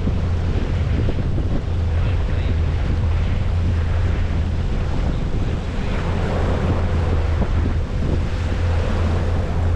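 Motorboat engine running steadily under way, a constant low drone, with wind buffeting the microphone and water rushing past the hull.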